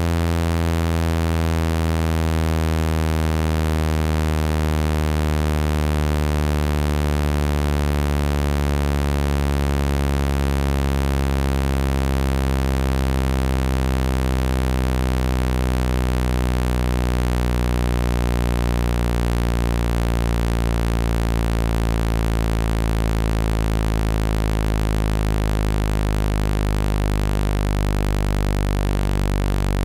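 Low, buzzing speaker-cleaning tone, meant to vibrate a phone speaker and shake out water and dust. It holds a steady loudness while its pitch sinks slowly.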